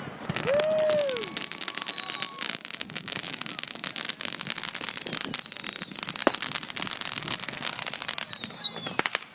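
Fireworks going off: a dense, rapid crackle of small pops, with high whistles that fall in pitch, each about a second long, coming again and again.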